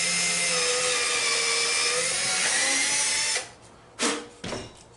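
Cordless drill running at speed, boring a pilot hole into a wood block, with a steady motor whine that stops about three and a half seconds in. A couple of short, sharp sounds follow near the end.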